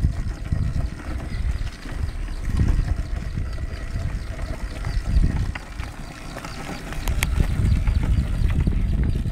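A handmade wooden toy jeep rolling on rubber tyres over brick paving: an uneven low rumble with a few light clicks and rattles.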